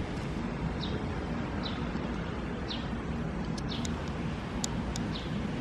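Outdoor street ambience: a steady low hum, with a small bird giving short falling chirps about once a second and a few faint ticks partway through.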